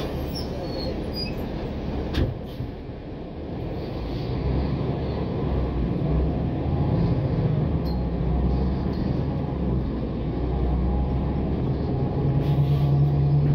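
Inside a NABI 416 transit bus underway: the engine drones steadily, with a single sharp knock about two seconds in. The engine note grows louder and stronger near the end.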